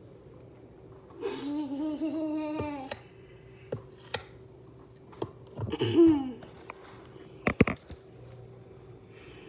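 A child's drawn-out, wavering laugh, then a second shorter one about six seconds in, followed by a couple of sharp knocks near the end; a faint steady hum runs underneath.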